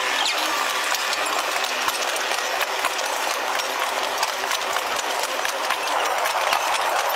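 A train running on rails: a steady mechanical rattle with many small clicks over a hiss.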